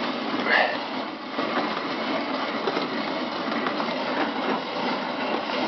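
Power tool running steadily on a Folkboat keel bolt, a continuous mechanical rattle.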